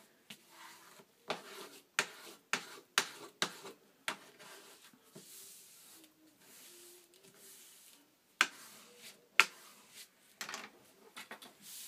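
A bone folder rubbed and pressed over paper glued to an MDF board, burnishing it down. It gives irregular sharp clicks and taps with stretches of soft scraping.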